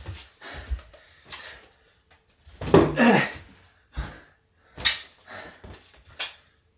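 A man's grunt of effort as he hurls an inflated rubber balloon, then a few sharp smacks, about a second apart, as the balloon hits the wall, bounces back and is caught. The balloon stays intact.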